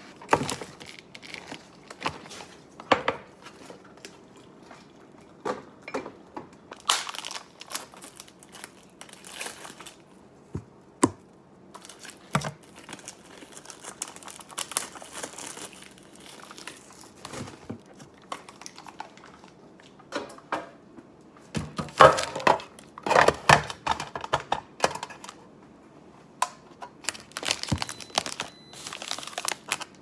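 Plastic grocery bags and food packaging crinkling and rustling as groceries are handled and unpacked, with scattered light knocks of items set down on the counter. The rustling is loudest and busiest about two-thirds of the way through.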